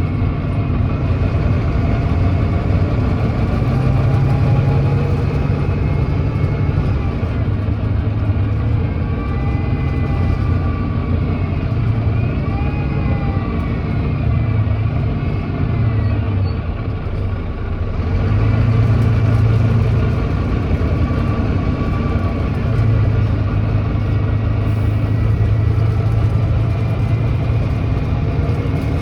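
Volvo D9B 9.3-litre diesel engine of a Volvo B9TL double-decker bus, heard on board while the bus is under way. The engine note rises and falls in pitch and level as the bus pulls and eases off, on a bus that has an exhaust leak.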